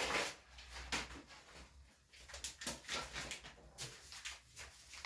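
Irregular rustling and light knocks from a packet of wheat flour being handled and poured into a mixing bowl.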